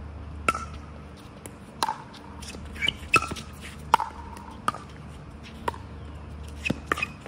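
Pickleball paddles striking a hard plastic ball in a fast doubles rally: a string of sharp, ringing pocks about a second apart, with three in quick succession near the end.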